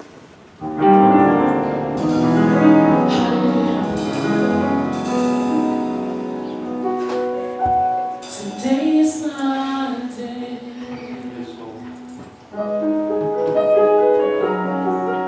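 Live gospel music: sustained accompaniment chords come in about a second in, with a solo voice sliding through a phrase midway. The music thins out briefly, then the chords return near the end.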